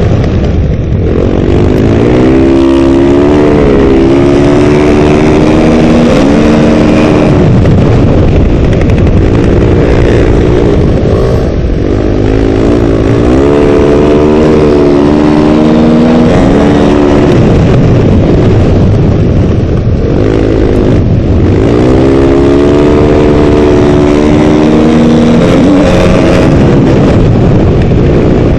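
Motorcycle engine running hard at speed on lake ice, its pitch climbing and dropping back several times as it accelerates. A heavy rush of wind noise runs over the microphone throughout.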